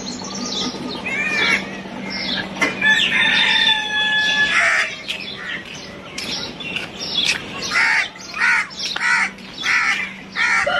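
Chickens and other birds calling over and over, with one longer held crow-like call from about three to five seconds in. A faint steady low hum runs underneath.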